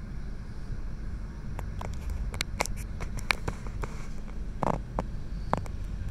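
A double-stack container train rolling slowly past, heard from inside a car: a steady low rumble with scattered clicks and two louder metallic clanks near the end.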